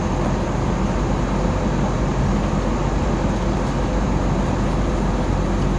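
Steady cabin noise of an airliner in flight, heard from inside the cabin: an even rush of engine and airflow noise with a faint steady hum running through it.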